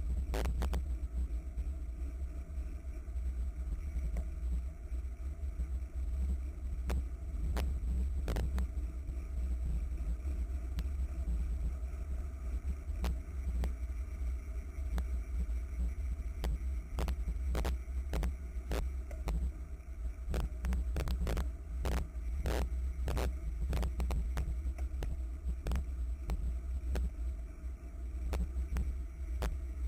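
Steady low rumble of wind buffeting a bicycle-mounted camera's microphone while riding in a racing pack, with irregular sharp clicks and rattles scattered through it, more of them in the second half.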